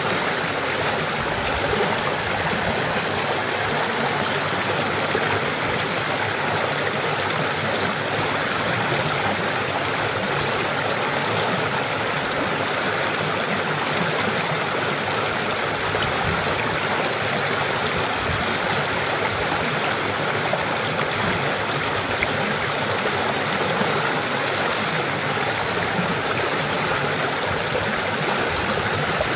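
Stream water pouring over a low rock ledge and churning into white water, a steady, unbroken rush.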